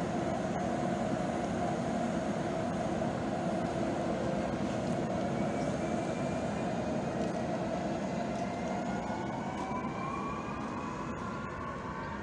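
ED76 electric multiple unit pulling away from the station: a steady hum, with a whine of several tones that climb steadily in pitch from about five seconds in as it gathers speed.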